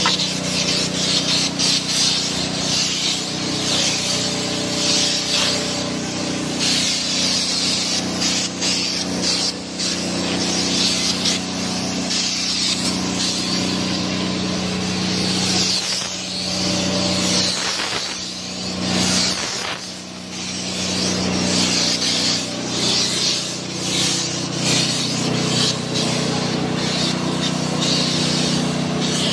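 Compressed-air paint spray gun hissing as paint is sprayed, swelling and easing with the trigger and pausing briefly a few times past the middle, over a steady low hum.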